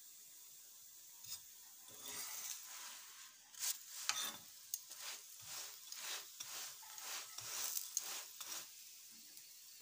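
Stuffed paratha being rubbed and turned on a hot iron tawa: a run of short scraping, rubbing strokes, about two a second, over a light sizzle of oil.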